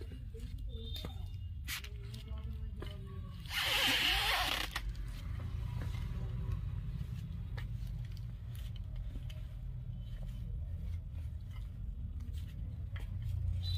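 Soft footsteps and scuffs of rubber-soled sandals on a marble floor over a steady low hum, with one loud scraping noise about a second long around four seconds in.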